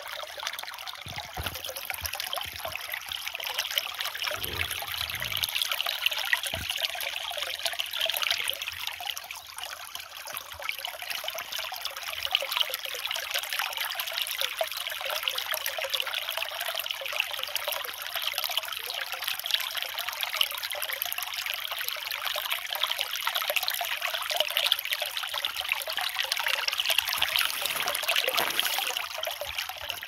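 Shallow brook trickling over stones, a steady splashing rush of water.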